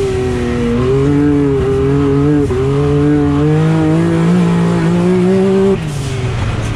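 Can-Am Maverick X3 Max's turbocharged three-cylinder engine running hard at fairly steady revs, pulling the side-by-side across sand, heard from inside the cab. Near the end the revs drop and the engine gets quieter as the throttle comes off.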